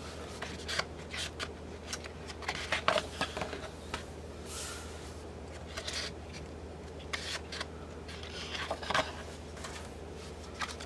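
Pages of a pearl cardstock paper pad being turned by hand: scattered paper rustles and light taps as each sheet is lifted and laid flat.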